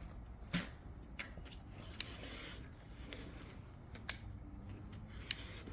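About four sharp, short clicks at uneven intervals over faint background noise, typical of hand-tool work.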